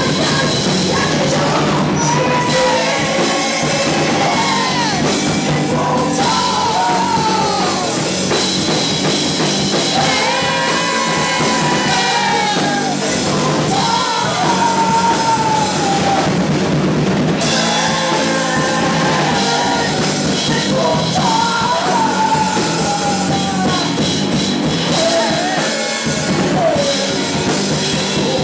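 Live post-punk rock band playing loud, with drum kit and bass guitar, and a woman singing into a microphone in long arching vocal lines.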